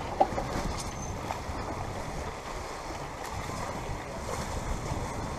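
Steady wind and water noise of a sailboat under way, with one sharp tick just after the start.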